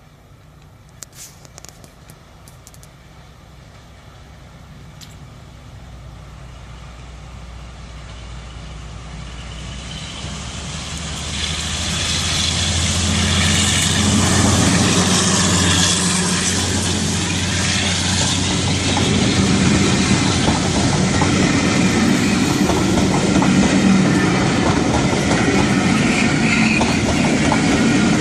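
A train approaching on the line, growing steadily louder over the first dozen seconds and then staying loud with running and rail noise. A few sharp clicks come about one to three seconds in.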